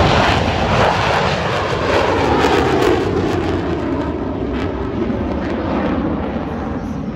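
Jet noise from three USAF Thunderbirds F-16 Fighting Falcons passing in formation. It is loud, its pitch falls over the first few seconds as they go by, and it then gradually gets quieter.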